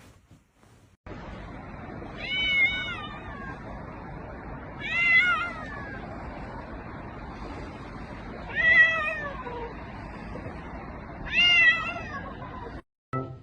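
A cat meowing four times, each meow about a second long and falling in pitch at its end, over a steady background hiss.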